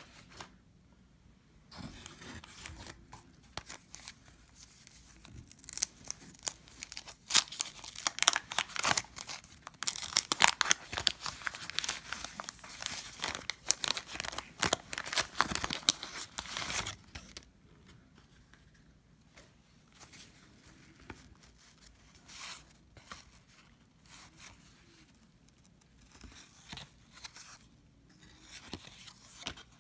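Paper wrapper of a basketball card pack being torn open and crinkled, a dense crackling tear from about two seconds in until about seventeen seconds. After that come quieter, scattered rustles.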